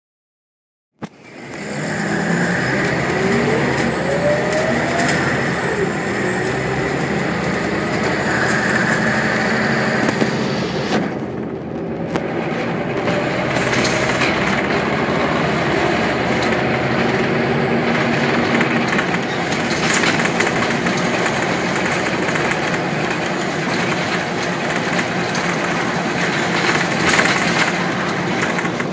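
Scania single-deck bus with Wright Solar body, heard from a seat inside while it drives: engine and drivetrain running, with a rising whine a couple of seconds in and occasional knocks. The sound cuts in abruptly about a second in.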